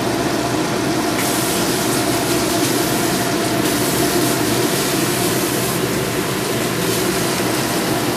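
Oil sizzling steadily around Vietnamese sesame balls (bánh cam) as they deep-fry in a pan.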